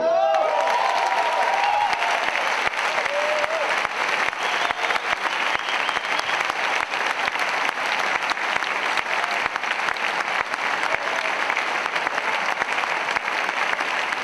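A large audience clapping at the end of a performance, with some cheering in the first couple of seconds.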